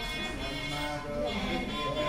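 Hindu devotional music with a sustained, flowing melody, accompanying the lamp-waving aarti.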